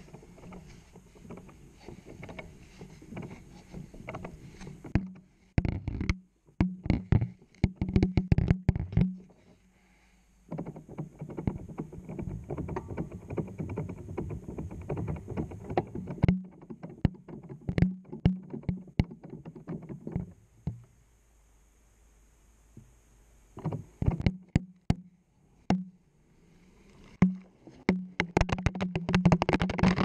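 Washing machine wash cycle heard from inside the drum: water sloshing and laundry tumbling in spells of several seconds, with quieter pauses between, under a low hum. Many sharp knocks come as the tumbling camera hits the drum, in clusters about six seconds in and again around 24 seconds.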